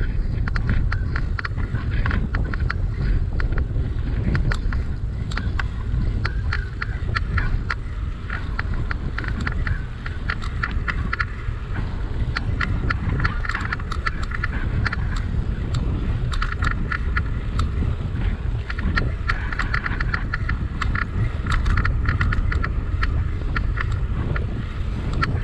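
Wind rushing over the microphone during a bicycle ride, with many small rattling clicks from the bike.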